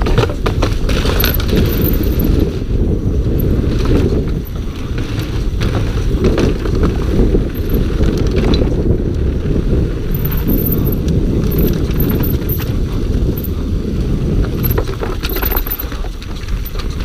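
Scott Gambler downhill mountain bike descending at speed: a steady low rumble of tyres and wind with constant rattling and clicking of the bike over the bumps. The tyres run over a wooden boardwalk and then onto a dirt trail near the end, heard through a rider-mounted camera.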